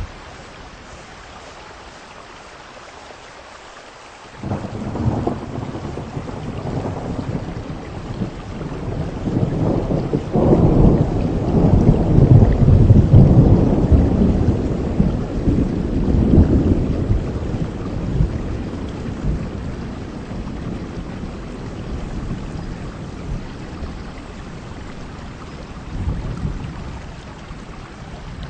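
Steady heavy rain, and about four seconds in a long roll of thunder breaks in, swells to its loudest midway and rumbles away over the next several seconds, with a smaller rumble near the end.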